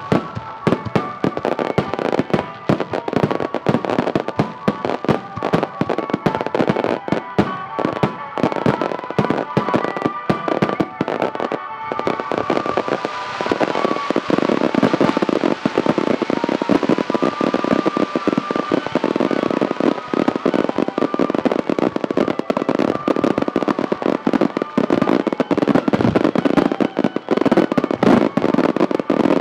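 A fireworks display with rapid, overlapping bangs and crackling bursts. Music plays underneath for roughly the first half, then the sound becomes a dense, continuous barrage of explosions.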